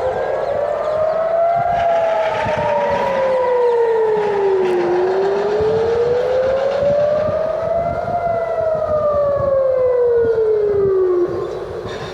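Civil-defence air-raid sirens wailing, warning of incoming rocket fire: a slow rise and fall of about three seconds up and three down, with more than one siren overlapping out of step. The main siren cuts off suddenly near the end, leaving a low rumble.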